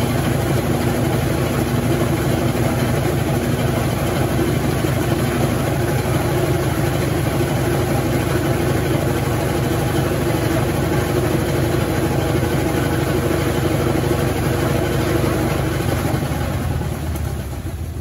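Consul CWS12 12 kg top-loading washing machine running steadily, a loud machine hum with a dense whir over it, most likely the tub in its spin; it winds down near the end.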